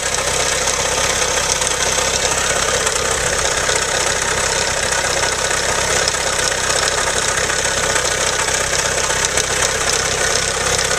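Vehicle engine idling steadily with a fast, even ticking or knocking, which the owner suspects may be a spun bearing.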